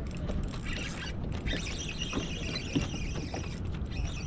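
Spinning reel cranked to retrieve a lure, a faint mechanical whir with small ticks, over wind noise on the microphone.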